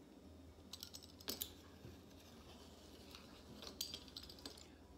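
Faint handling sounds: a few light clicks and taps as a stainless steel ruler and a pizza cutter are worked over fondant on a plastic cutting mat, with the ruler shifted for the next strip. The sharpest taps come about a second in and again near four seconds.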